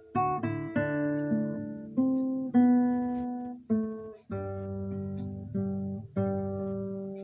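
Solo acoustic guitar playing a slow tune of plucked notes and chords, each struck and left to ring out, with a short gap about four seconds in.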